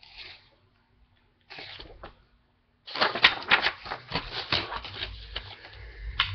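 Plastic DVD cases and packaging being handled: two brief soft rustles, then, about three seconds in, a loud run of crinkling and clicking lasting about three seconds.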